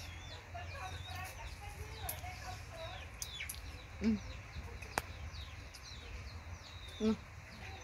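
Chickens clucking in the background, with many short, high, falling chirps repeating throughout. Two louder low clucks come about four and seven seconds in, and a single sharp click about five seconds in.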